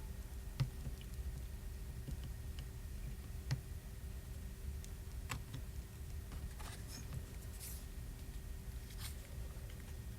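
Faint, scattered taps and clicks of small tools and phone parts being handled during a phone repair, over a low steady hum.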